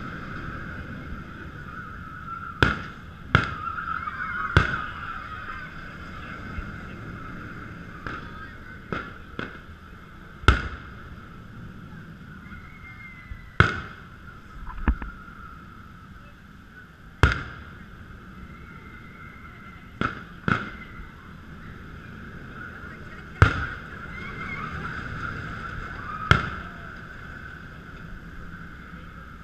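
Distant aerial fireworks shells bursting: about a dozen sharp bangs at irregular intervals a few seconds apart, each with a short echoing tail. Underneath runs a steady wavering drone.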